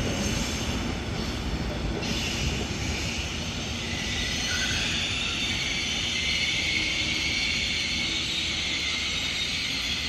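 Train moving through a station: a low rolling rumble fades, and about two seconds in a steady high-pitched metallic squeal sets in and holds.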